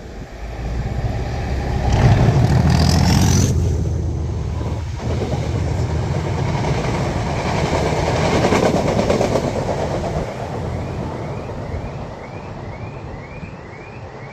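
Class 37 diesel locomotive 37884's English Electric V12 engine working at full power. It is loudest a couple of seconds in and eases off after about ten seconds. Near the end a car alarm sets off by the locomotive's noise, a quick repeating rising chirp about two or three times a second.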